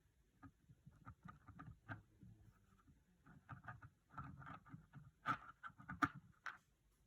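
Small irregular clicks and taps of hard plastic miniature parts being handled and fitted together on a work surface, busiest in the second half with two sharper clicks near the end.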